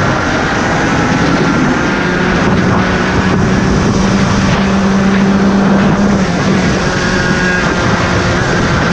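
DMAX race kart's two-stroke engine running hard at full throttle, heard onboard with wind rushing over the microphone. The engine note climbs through the first half and eases a little near the end as the kart slows into a bend.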